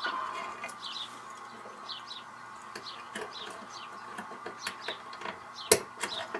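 Short, falling bird-like chirps repeating over a faint steady hum. About five and a half seconds in comes a single sharp click, the loudest sound, as the chain and small padlock on the model switch stand are locked.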